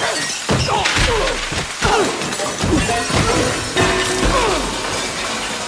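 Slowed-down film sound effects of a kitchen being smashed: a string of crashes and shattering, with swooping tones that bend up and down, over soft music.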